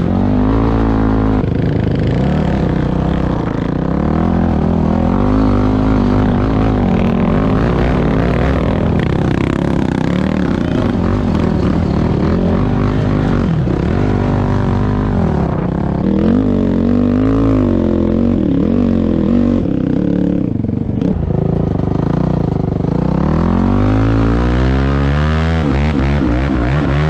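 Yamaha YZ400F four-stroke single-cylinder engine of a three-wheeler conversion being ridden hard, its pitch repeatedly climbing and falling away as it revs up and eases off, with a long climb near the end.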